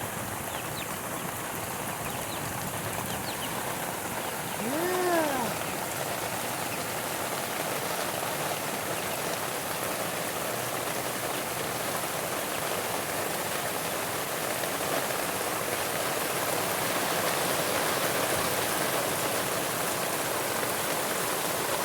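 Heavy rain falling steadily, a little louder in the second half. A short call rising and then falling in pitch about five seconds in.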